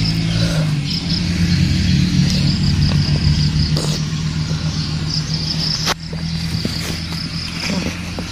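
A steady low engine drone runs throughout under a steady pulsing chirp of insects. Sharp crunching bites into a water apple come about four and six seconds in.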